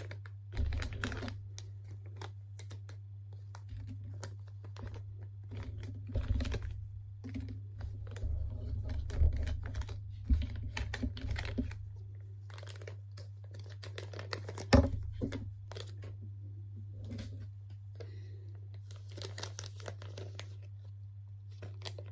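Small clear plastic parts bags of a Lego light kit crinkling and rustling as they are handled, with scattered light clicks and one sharper knock about 15 seconds in. A steady low hum runs underneath.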